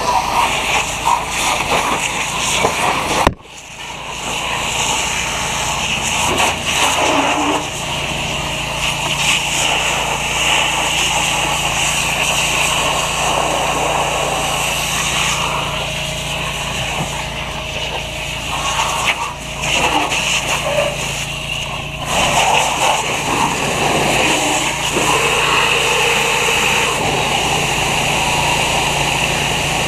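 Fire hose nozzle spraying a stream of water onto a burning car: a loud, steady hiss and rush. An engine runs with a steady low hum underneath. About three seconds in, the sound drops away sharply and then builds back up.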